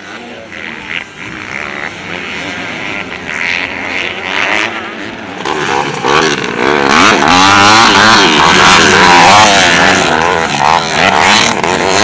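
Motocross dirt bikes racing, their engines revving up and down through the gears. The sound grows much louder about halfway through, with several engine notes rising and falling over one another.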